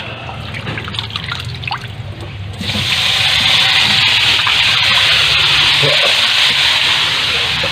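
Raw chicken pieces being rinsed by hand in a bowl of water in a steel sink. About two and a half seconds in, a tap starts running into the sink, loud and steady.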